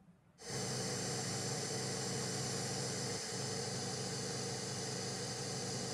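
Television static: a steady hiss with a low hum underneath, starting abruptly about half a second in.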